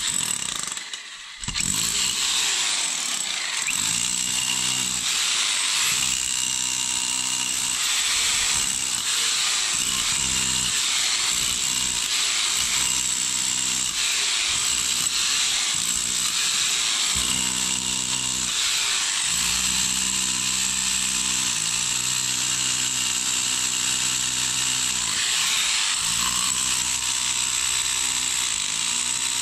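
Electric rotary hammer chiselling into old concrete foundation. It works in repeated runs of a couple of seconds with brief letups, over a steady high motor whine.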